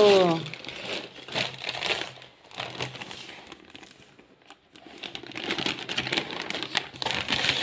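Plastic packaging crinkling as a white plastic bag is pulled out of a torn poly mailer and handled, in irregular rustles. It goes quieter for a couple of seconds in the middle and picks up again near the end.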